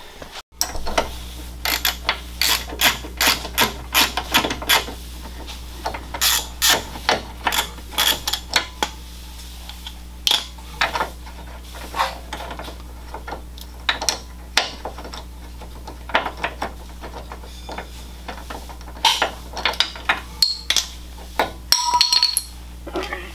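Hand tools working on the car's front suspension: irregular metal clicks, knocks and clanks in bursts, over a steady low hum.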